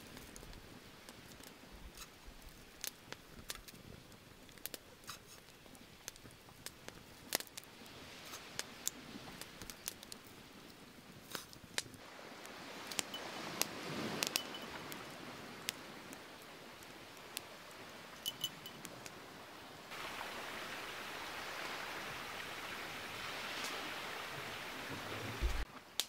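Wood campfire crackling, with irregular sharp snaps and pops. Under it, a soft rushing noise swells about halfway through and turns louder and steady for the last several seconds.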